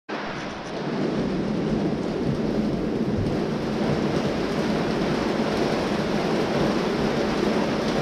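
Heavy rain falling steadily in a storm, a dense unbroken hiss that swells slightly about a second in.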